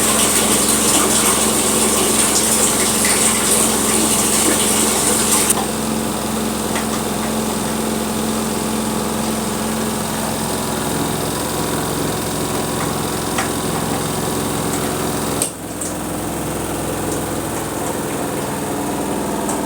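Sharp ES-T86CL washing machine's spin dryer running, a steady motor hum with several tones. A high hissing rush over it stops about five seconds in, and the sound dips briefly near the end.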